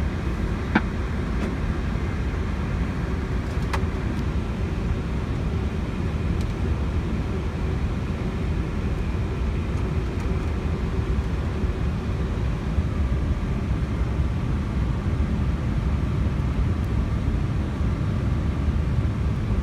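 Steady low rumble of cockpit noise aboard an Airbus A321neo during pushback, with a short click about a second in and another about four seconds in.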